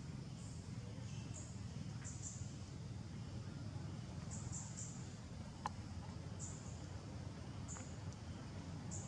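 Outdoor ambience of short, high-pitched chirps in twos and threes, repeating every second or so over a steady low rumble, with one sharp click a little past halfway.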